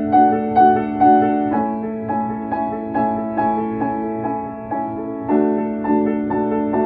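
Background piano music: soft, repeated notes in a steady pulse of about two a second, shifting to a new chord a second or so in and again near the end.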